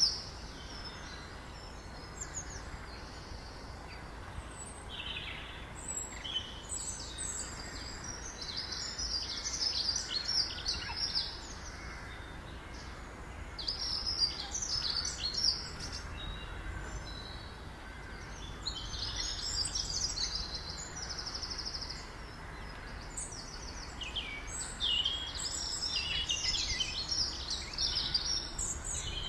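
Ground squirrel giving bouts of rapid, high-pitched chirping calls, each bout lasting a second or two and coming every few seconds, over a steady low outdoor rumble.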